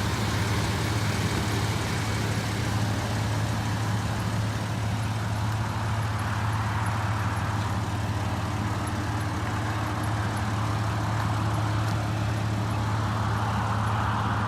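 Steady low engine hum of an idling vehicle with a haze of outdoor road noise, unchanging throughout.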